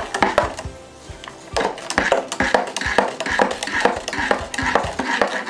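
Metal spoon stirring a liquid in a glass jar, clinking repeatedly against the glass, about three times a second, over background music.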